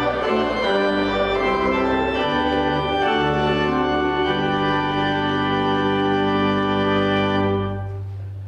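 Church organ playing slow sustained chords, ending on a long held final chord that is released near the end and dies away.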